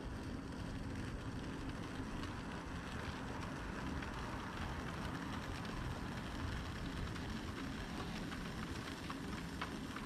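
Electric pottery wheel running with a steady low hum while a sharp trimming tool shaves clay from the underside of a spinning dinner plate, a continuous scraping hiss, as the plate's foot is trimmed.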